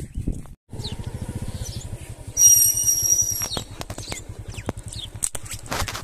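Motorcycle engine idling with an even low putter, and a loud shrill high-pitched tone lasting about a second, between two and three and a half seconds in.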